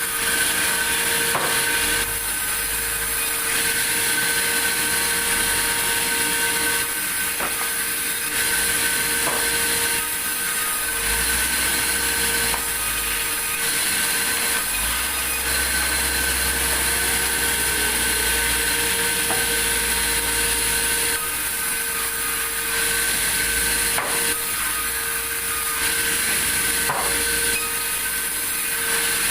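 Sawmill saw running steadily and cutting through a log, with a constant machine hum and a few sharp knocks.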